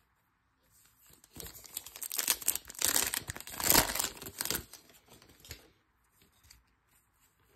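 Foil wrapper of a Topps Chrome baseball card pack being torn open and crinkled by hand, loudest about halfway through. It is followed by faint ticks as the cards are handled near the end.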